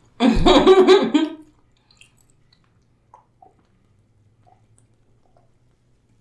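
A woman laughing briefly, a pulsing laugh about a second long, then only a few faint clicks.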